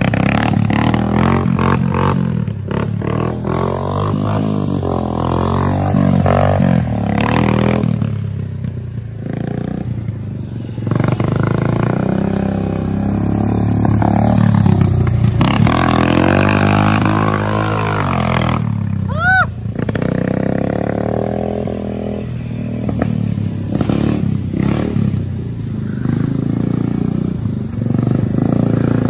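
A small 125 cc quad's engine running and being revved up and down repeatedly, with the engine note rising and falling. A brief high rising squeak is heard about two-thirds of the way through.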